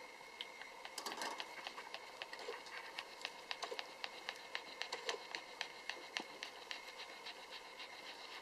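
Lhasa Apso mother dog licking her newborn puppies: a run of quick, irregular wet licking clicks, several a second.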